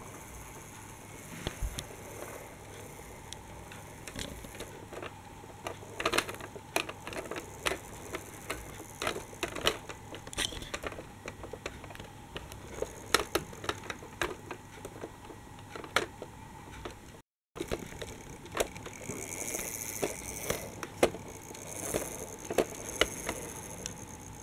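Irregular plastic clicks and rattles of a Dickie Toys toy trolleybus rolling over plastic toy train track. The clicks come thicker from about a quarter of the way in.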